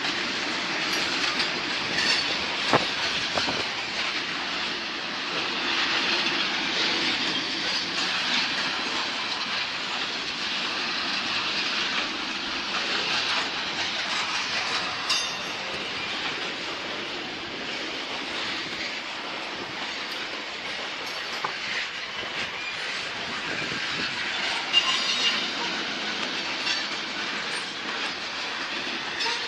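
Freight train of covered grain hopper cars rolling past: steady wheel-on-rail noise with occasional sharp clicks of wheels over rail joints, and some wheel squeal.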